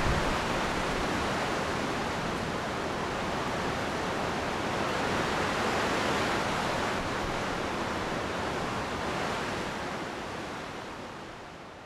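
Steady, even rushing noise with no distinct tones, fading out near the end.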